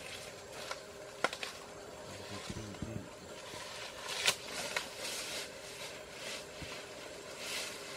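Asian elephant feeding on grass and cut stalks: scattered crisp snaps and crunches as it chews, the sharpest about four seconds in, with soft rustling of dry vegetation in the second half.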